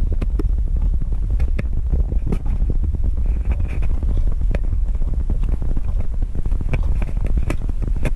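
A bicycle rolling over a rough concrete lane, with wind buffeting the camera's microphone as a steady low rumble. Irregular clicks and knocks come from the bike rattling over the bumps.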